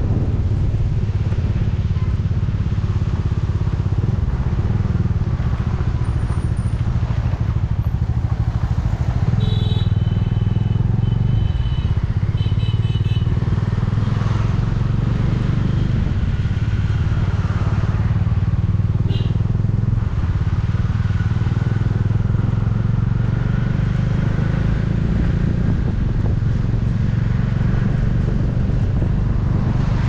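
Bajaj Dominar 400's single-cylinder engine running steadily at cruising speed, heard from the rider's seat. About a third of the way in, a high beeping sounds three times in quick succession.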